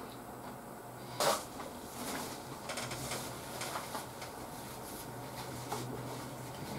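Quiet eating sounds: small mouth clicks and a paper tissue rustling as it is pressed against the mouth, with one brief louder crackle about a second in, over a faint steady hum.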